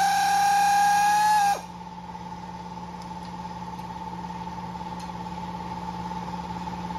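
A power tool's motor whines, rising slightly in pitch, then stops about a second and a half in, winding down quickly. A quieter steady machine hum carries on behind it.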